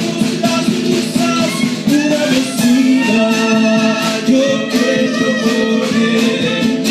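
A small acoustic band playing live: guitar with percussion, and a melody line carried over it.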